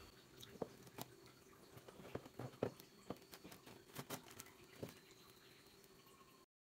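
Light scattered taps and knocks from a wooden rice paddle and woven bamboo sticky-rice baskets being handled, over a faint steady hum. The sound cuts off suddenly near the end.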